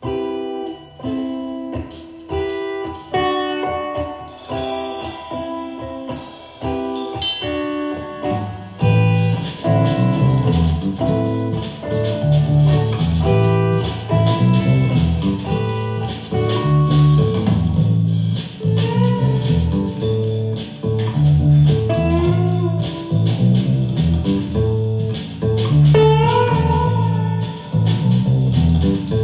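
A rock band playing an instrumental, led by guitar. For about the first eight seconds a guitar plays alone, picking single notes. Then the bass and the rest of the band come in, and the sound gets fuller and louder.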